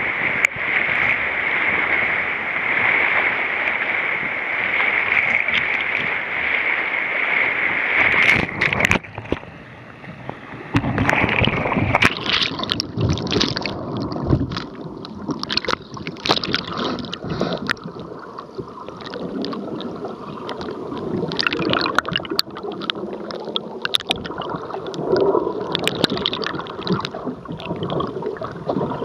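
Whitewater rapids rushing steadily around a kayak for the first eight seconds or so, then the sound turns muffled as the kayak capsizes and goes under: underwater gurgling and bubbling with irregular knocks and clicks against the hull.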